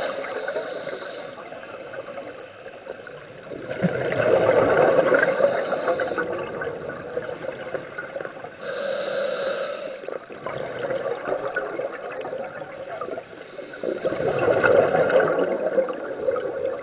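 Scuba regulator breathing underwater: a hissing inhalation through the regulator at the start and again about nine seconds in, each followed a few seconds later by a longer gurgling rush of exhaled bubbles.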